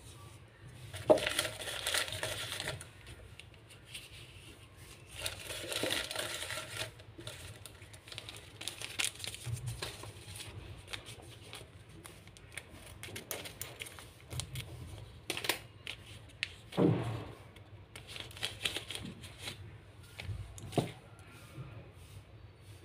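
Lined paper rustling and crinkling in hands in several bursts, with scissors cutting paper and a few sharp clicks and taps in between.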